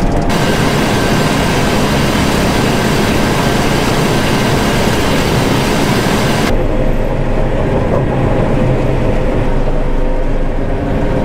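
A John Deere combine running steadily at full throttle, with the threshing system and header engaged. A high hiss over the machine noise cuts off abruptly about six and a half seconds in, leaving the lower running noise with its steady tones.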